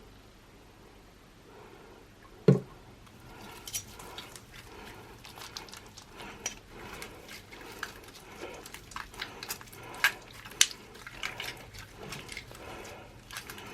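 Clear crystal slime with Orbeez being squished and worked by hand, giving an irregular run of wet clicks and pops. A single dull thump comes about two and a half seconds in, before the clicking starts.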